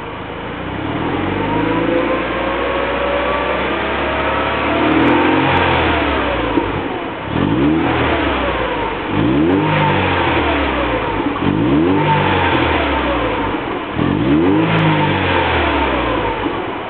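Mercedes-Benz W208 CLK200's four-cylinder engine breathing through an aftermarket REMUS rear muffler, revved. It first climbs slowly in pitch, then from about halfway is blipped up and let fall again roughly every two seconds.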